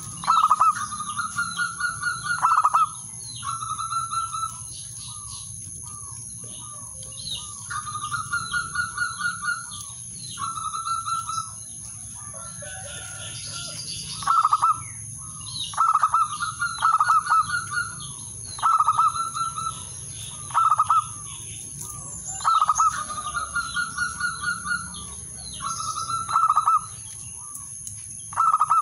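Male zebra dove (perkutut) singing a rival-calling song: repeated phrases, each a quick run of short staccato coos about a second or two long, some opening with a louder single note, with short gaps between them.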